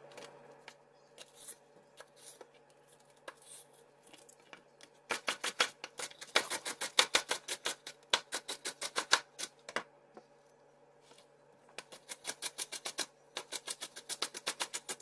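Chef's knife chopping celery on a plastic cutting board: a few scattered knocks at first, then quick, even chopping at about five strokes a second in two runs with a short pause between them.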